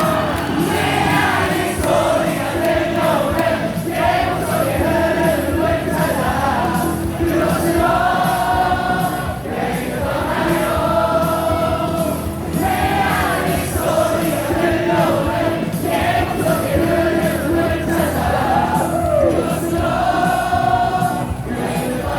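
Baseball stadium crowd singing a cheer song in unison over amplified music, in repeated sung phrases of a couple of seconds each.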